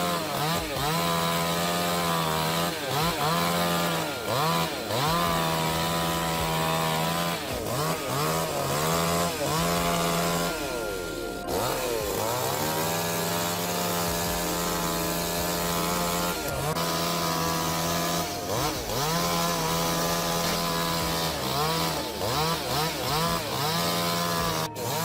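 Chainsaw running hard and cutting wood. Its pitch repeatedly sags as the saw bogs down under load in the cut, then climbs back up to full speed.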